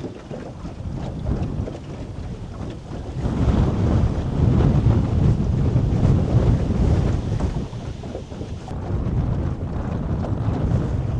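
Strong wind buffeting the microphone in uneven gusts, a low rumble that swells and eases several times.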